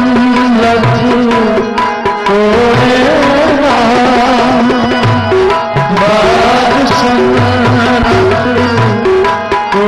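Sikh kirtan music: tabla drumming a steady beat under harmonium's held tones and melody.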